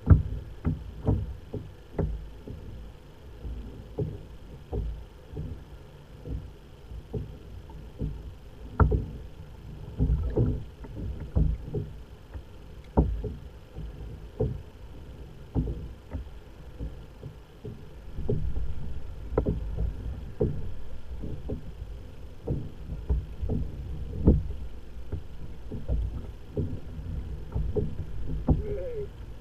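Small waves slapping against the hull of a plastic sit-on-top fishing kayak, heard as irregular low knocks and splashes over a steady low rumble.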